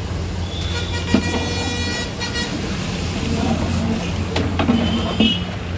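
A vehicle horn sounds for about two seconds, with a shorter toot near the end, over a steady low hum of traffic. Later a long metal paddle stirs thick lentil gravy in a large metal pot, knocking against it a couple of times.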